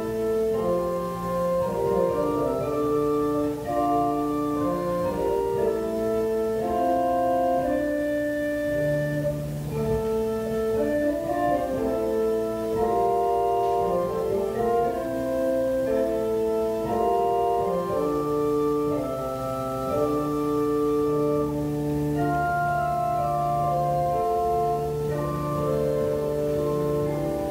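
Organ playing a slow piece of held chords over long sustained bass notes.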